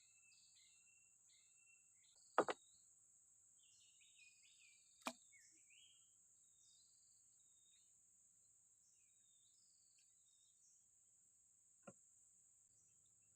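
Faint outdoor ambience: a steady high-pitched insect drone with scattered bird chirps. A few sharp clicks cut through: a double click about two and a half seconds in, another near five seconds, and a faint one near the end.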